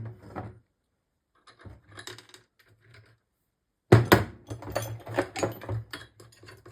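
Metal tools and engine parts clinking and rattling in quick, irregular taps: a few scattered clicks at first, then busier and louder from about four seconds in.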